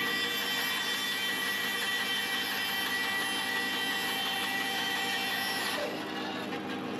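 Bandsaw running and cutting through a small purpleheart pen blank: a high, steady whine of the blade in the hardwood starts at once and stops about six seconds in as the cut finishes, leaving the saw running on.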